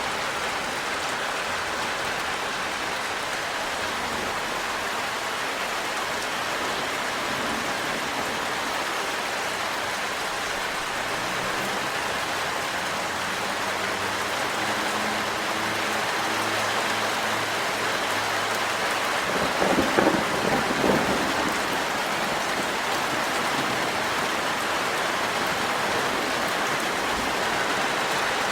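Steady rain falling, an even hiss throughout, with a brief louder burst about twenty seconds in.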